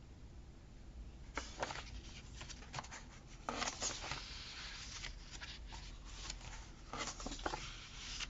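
Paper rustling and crinkling in a few short bursts as sticker sheets and planner pages are handled and stickers peeled and placed, with light clicks between them.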